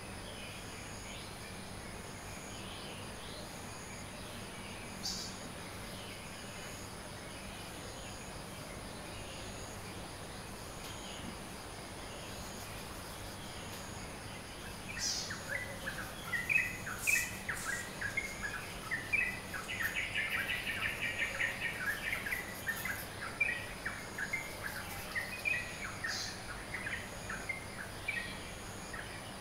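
Birds chirping in a dawn chorus: a few scattered calls at first, then from about halfway a burst of quick, dense chirping and twittering from several birds. A steady high insect or cricket drone runs underneath.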